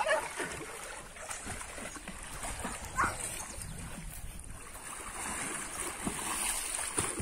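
Water splashing and sloshing as several people swim through a muddy pond, in irregular strokes.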